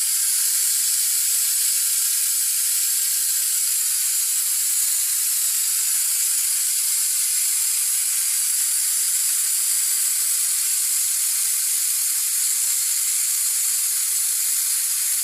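Compressed air hissing steadily out of a Husky 33-gallon air compressor's tank as it is bled down, letting the pressure fall so the compressor will cut back in.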